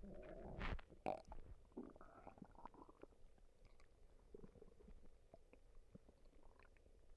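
Human stomach gurgling and rumbling: a cluster of gurgles and pops in the first three seconds, then only faint scattered gurgles.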